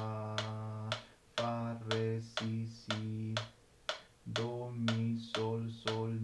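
A man singing a solfège exercise in a low voice, note names held one to three beats each, over a steady click about twice a second that keeps the tempo of quarter note = 120.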